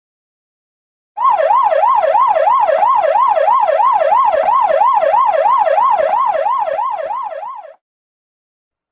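Emergency vehicle siren in a fast yelp, its pitch swinging up and down about three times a second. It starts about a second in and cuts off near the end.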